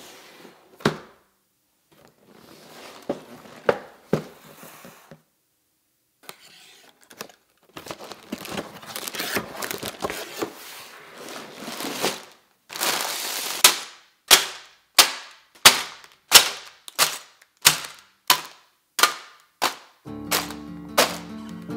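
Cardboard Lego set box being handled and opened, with rustling and scraping and a few light knocks. Then a quick run of about a dozen sharp clacks, one every half second or so, as the sealed bags of Lego pieces are set down. Acoustic guitar music starts near the end.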